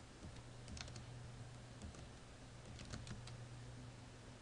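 Faint computer keyboard typing: a few short runs of key clicks, about a second in and again around three seconds in, over a low steady hum.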